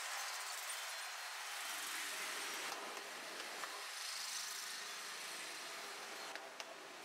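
Steady street background noise with traffic running, and a few faint clicks near the end.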